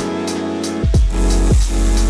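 Electronic background music with a heavy kick drum, deep bass and a steady beat.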